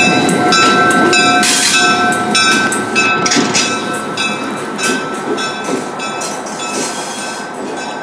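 Excursion train cars rolling slowly on the rails: the wheels clatter and click irregularly over the track, with a steady high-pitched wheel squeal that eases off in the second half.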